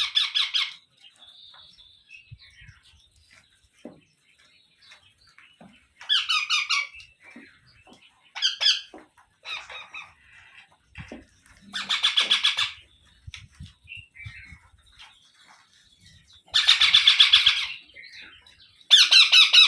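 Young Indian ringneck parrots (rose-ringed parakeets) giving harsh, rapid, stuttering begging calls in six bursts of about a second each, with softer chatter between them, while being fed by regurgitation.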